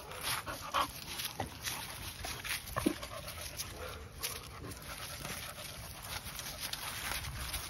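American bully dogs panting and moving around, with frequent short crackles like dry leaves underfoot.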